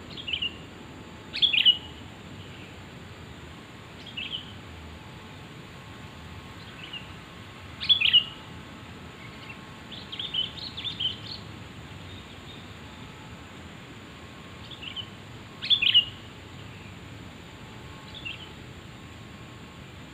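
Sooty-headed bulbul (kutilang) calling in short, sharp, falling notes. Three loud calls come about seven seconds apart, with a quick run of notes about halfway through and fainter calls in between, over a steady hiss.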